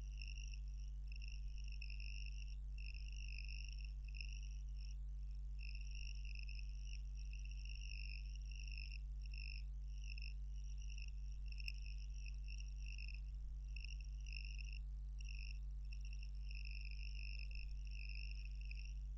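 Faint background noise: a steady low hum under a high-pitched trill that breaks off briefly every second or so.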